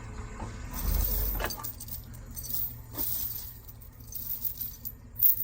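Light metal clinking and rattling, with a few sharp clanks, the loudest near the end; a vehicle engine idles low underneath for the first second and a half.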